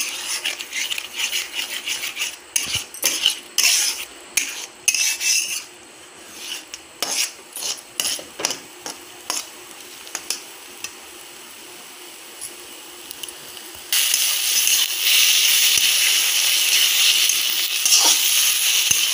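A spatula stirring and scraping scrambling eggs in a kadai, in quick irregular strokes with clicks against the pan. About fourteen seconds in, a loud steady sizzle of frying suddenly takes over.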